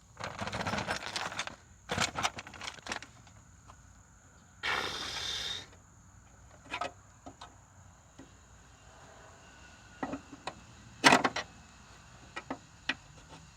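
Handling noise from a push mower's side chute being shifted into place for welding: scraping and rustling spells with scattered sharp metal clicks, the sharpest about eleven seconds in.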